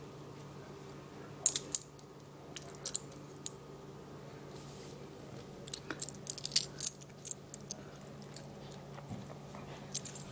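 Scattered sharp clicks and clinks, a few at a time with a dense run about two-thirds of the way in, over a faint steady hum.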